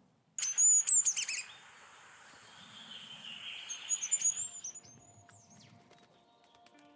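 Goldcrest song: two phrases of very high, thin, rapid notes, one just after the start lasting about a second and another about four seconds in.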